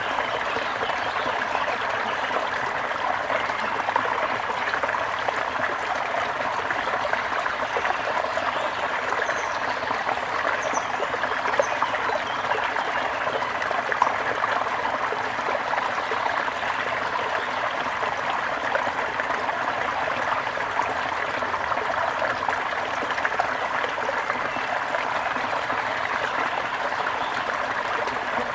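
Brook water running and trickling steadily.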